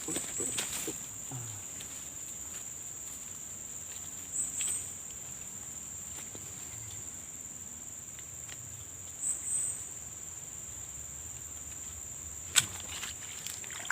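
Steady high-pitched drone of insects, with a few short chirps over it. There are a few soft knocks in the first second and a single sharp click near the end.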